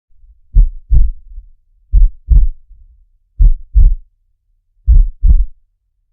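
Heartbeat heard through a stethoscope: four slow double beats, lub-dub, about one and a half seconds apart.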